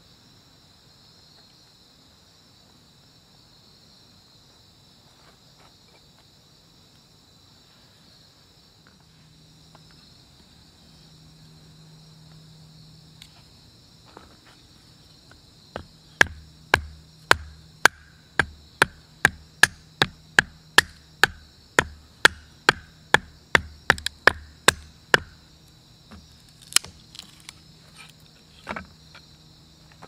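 A knife being knocked down through an upright piece of firewood to split kindling: a run of about twenty sharp wooden knocks, a little over two a second, starting about halfway in, with a few more after a short pause near the end. Crickets chirp steadily throughout.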